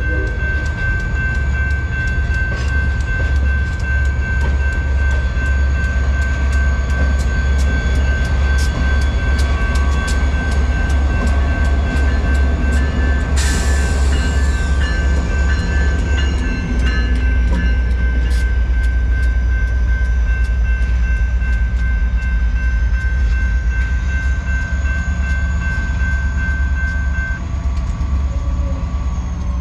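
A passenger train passes at a grade crossing with a deep diesel rumble and regular wheel clicks, while the crossing bell rings with a steady tone. About halfway through, the trailing EMD F40PH diesel locomotive goes by with a sudden loud burst of engine noise. The bell stops a couple of seconds before the end as the train pulls away.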